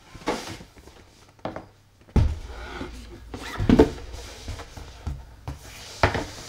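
Cardboard board-game board and playmat being handled and turned over on a table: a few light knocks, then from about two seconds in a thud followed by continuous rubbing and sliding with more knocks.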